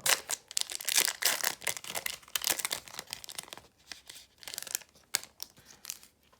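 Plastic wrapper of a trading-card booster pack crinkling and tearing as it is opened: dense rustling for about three and a half seconds, then a few sparser crinkles.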